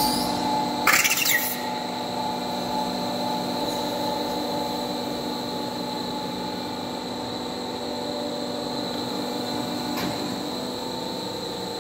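Extrusion blow-moulding machine running with a steady hum and several steady whining tones, with a short loud hiss-like burst about a second in.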